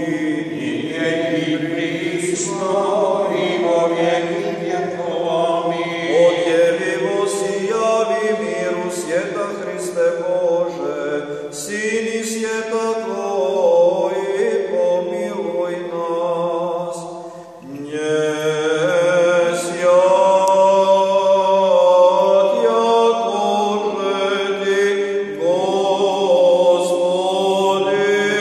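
Unaccompanied Serbian Orthodox chant for a memorial service for the departed, sung by men's voices, with a short break between phrases about two-thirds of the way through.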